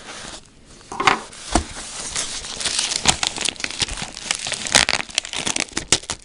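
Packing materials being handled as a parcel is unpacked: rustling and crinkling of a foam packing sheet, cardboard and paper, with many sharp crackles. It starts after a brief lull.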